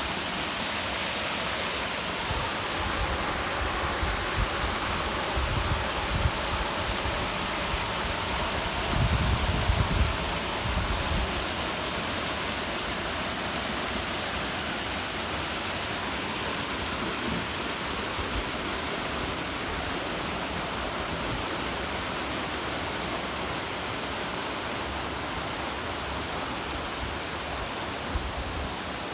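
Waterfall rushing steadily, with some low rumbles between about three and eleven seconds in.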